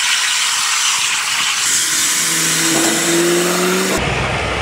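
High-pressure water jetting from a pressure washer spray gun held under the water in a wash bucket, churning the shampoo into foam: a loud, steady rushing hiss. About halfway through, a hum joins in and rises slightly in pitch, and a deep rumble comes in near the end, consistent with the pressure washer's motor and pump running.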